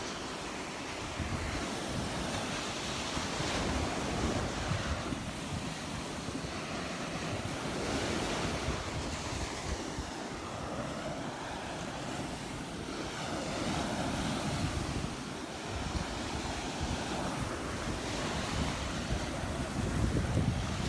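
Gulf surf breaking and washing up the beach, swelling every few seconds, with wind buffeting the microphone.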